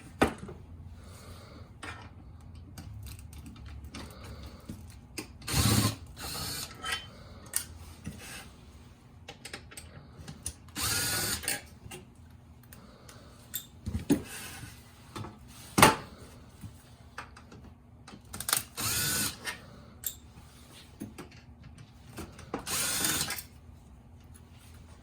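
Electric screwdriver running in short bursts of about a second, about four times, backing out small Phillips screws from a navigation unit's display housing. Light clicks and knocks of small parts and tools fall between the runs.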